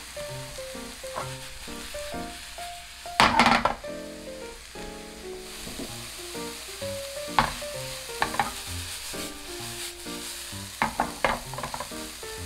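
Chopped onion sizzling in oil in a small nonstick frying pan on medium-low heat, with a spatula scraping and stirring it. The loudest moment, a bit over three seconds in, is the onion being tossed in the pan, and quicker scrapes come around seven to eight seconds and again near eleven seconds, over soft background music.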